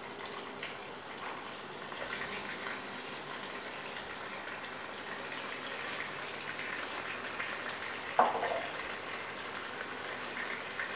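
Raw chicken pieces frying in hot oil in a karahi, a steady sizzle with many small crackles and pops. About eight seconds in there is a single short, sharp knock.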